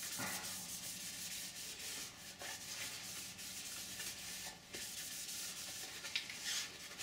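Kitchen towel rubbed over the sanded surface of a 3D-printed ABS part: a dry, scratchy rubbing in repeated strokes.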